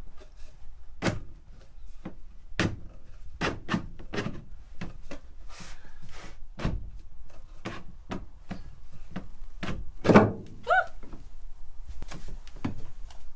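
A wooden floor-locker box knocking and thudding against the floorboards as it is pushed and worked down into its opening: a run of sharp wooden knocks, the loudest about ten seconds in, followed by a brief squeak.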